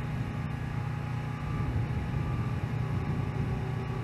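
Diesel engine of a semi truck running steadily as it slowly tows a heavy lowboy trailer: a continuous low rumble.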